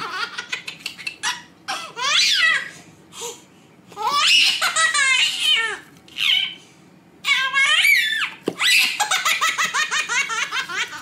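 A baby laughing hard: bouts of rapid, high-pitched belly laughs broken by short pauses.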